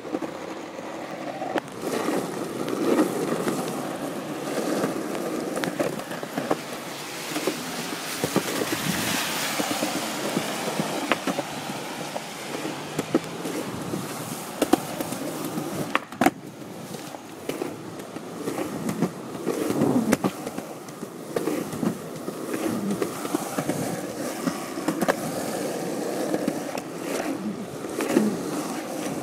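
Skateboard wheels rolling over pavement in a continuous rumble that swells and fades, with scattered clicks and a sharp clack about sixteen seconds in.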